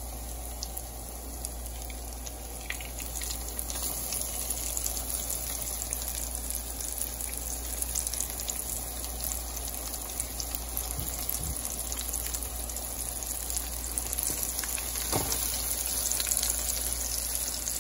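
Breadcrumb-coated cod fillets sizzling in hot oil in a frying pan: a steady, dense crackle that grows a little louder over the first few seconds as more fillets go into the oil.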